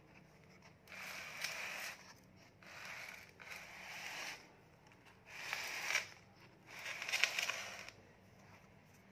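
Leaves of a bonsai fig tree rustling and brushing close by, in five separate rustles of about a second each.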